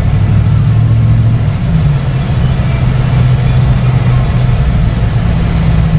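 Car engine running at low speed in slow traffic, heard from inside the car. Its low hum drops in pitch about two seconds in and rises again near the end.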